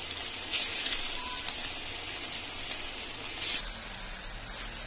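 Batter-coated chicken pieces just dropped into hot oil, deep-frying: a steady crackling sizzle with a few louder pops.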